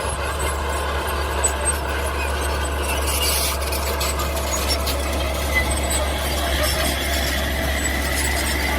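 Mini bulldozer running steadily: a constant low drone with a thin, high whine over it and a few small clicks.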